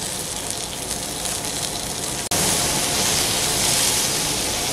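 Pork sizzling on a hot grill: a steady hiss that turns abruptly louder a little over two seconds in.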